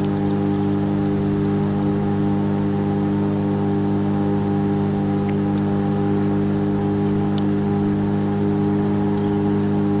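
Sanyo microwave oven running: a steady electrical hum from its high-voltage transformer and magnetron. The 18650 lithium cell inside makes no sparks or pops.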